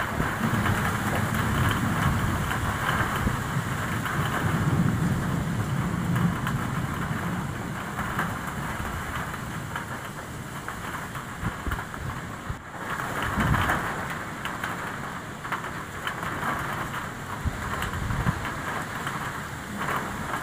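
Steady rain falling in a storm, with gusts of wind rumbling unevenly on the microphone.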